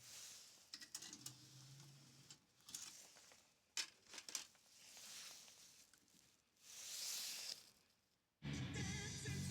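A few faint clicks, as of buttons being pressed on a Pioneer DEH-2800MP car stereo while its music is stopped, with a brief hiss. Music from the stereo starts again near the end.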